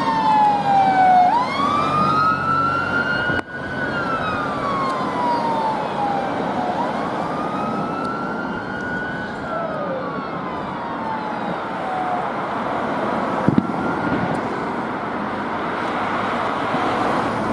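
Fire engine's wail siren sweeping slowly down and up in long glides as the pump responds, fading away after about twelve seconds to leave steady road traffic noise.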